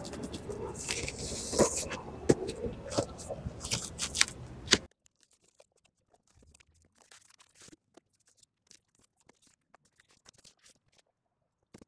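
Cardboard shipping box being handled and opened: scrapes, a tearing rasp and clicks of cardboard for about five seconds, then the sound cuts off abruptly to near silence with only faint ticks.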